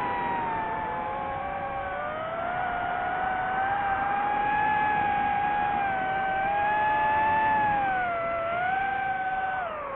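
DJI FPV quadcopter's motors and propellers whining, several close pitches rising and falling together with the throttle, with a dip near the end.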